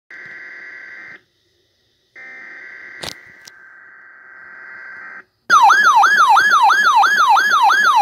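Weather radio receiving an alert test: the SAME digital header comes through as a harsh buzzing tone, first for about a second, then after a short gap for about three seconds, with two sharp clicks partway through. About five and a half seconds in, the RadioShack weather radio's alert siren starts, a loud warble sweeping up and down about three times a second.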